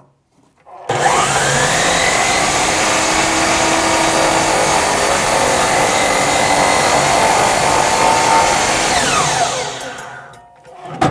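DeWalt sliding compound miter saw: the motor starts about a second in with a rising whine, the blade cuts across a solid-wood board, then the motor is switched off and winds down with a falling whine near the end. A sharp click follows just before the end.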